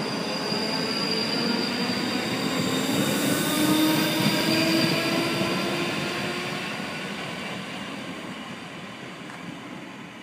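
ScotRail electric multiple-unit train running past the platform on steel rails, with wheel and rail noise and a steady high whine over lower motor tones. It is loudest about three to four seconds in, then fades steadily as the train draws away.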